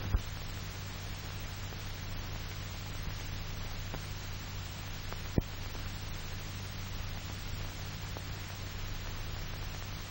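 Steady hiss and low hum of an old film soundtrack, with a sharp click right at the start and a louder pop about five seconds in.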